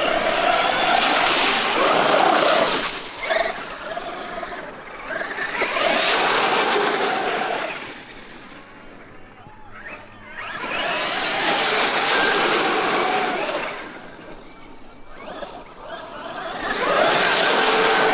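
Traxxas X-Maxx RC monster truck driving past again and again: four loud passes, each a pitched motor whine over a rushing noise that swells and fades.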